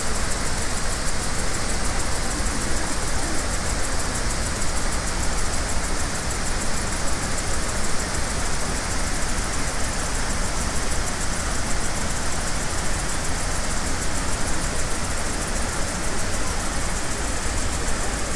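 Steady roar of the Iguazu Falls, many large waterfalls pouring over cliffs into the gorge: an even, unbroken rushing noise.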